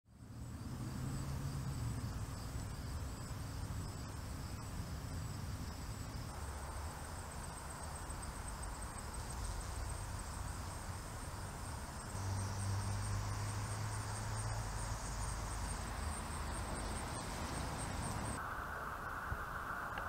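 Insects trilling in a high-pitched, pulsing chorus over a low rumble. Near the end the trilling cuts off abruptly and a steady hiss takes over.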